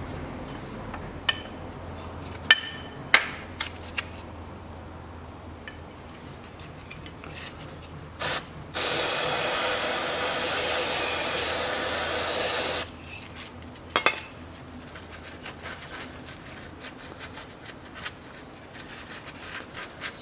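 Wrench on the automatic transmission's drain plug as it is tightened, a few sharp metal clicks in the first few seconds. About nine seconds in comes a steady hiss lasting about four seconds, followed by light clicks and a rag rubbing around the plug.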